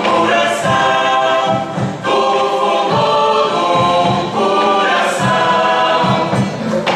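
Recorded song by a Portuguese academic tuna (student music group): a group of voices singing together over a steady beat.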